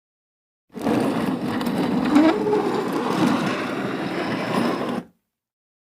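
A heavy object dragged across a floor: one continuous scraping drag lasting about four seconds, with a low wavering tone creeping in around the middle, starting and stopping abruptly.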